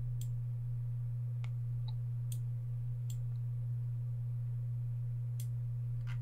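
Computer mouse clicking about half a dozen times, irregularly, over a steady low hum.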